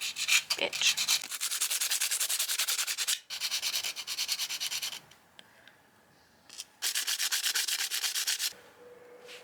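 Sandpaper rubbed by hand in quick back-and-forth strokes on a rusty steel tool blade, scrubbing the rust off. It comes in two bouts of rapid, even scratching strokes, with a pause of nearly two seconds between them.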